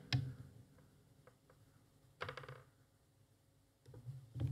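A few small clicks of metal tools at a circuit board, then a sharp snip near the end as flush side cutters cut a thin enamelled copper bodge wire.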